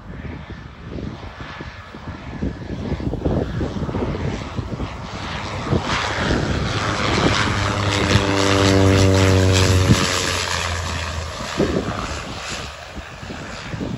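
Light propeller aeroplane flying low past. Its engine and propeller drone grows louder, peaks a little after halfway with the pitch dropping slightly as it goes by, then fades.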